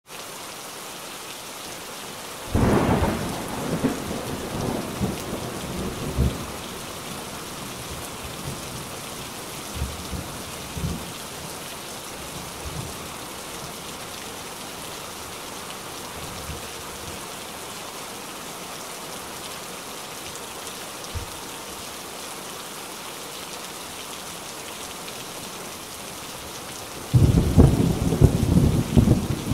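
Steady rain falling, with thunder rumbling: a loud roll a couple of seconds in, a few fainter rumbles around ten seconds, and another loud roll near the end.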